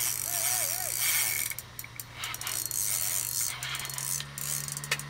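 Spinning reel on an ice-fishing rod, its gears and drag ticking in spurts as line is worked in against a heavy fish pulling on the bent rod.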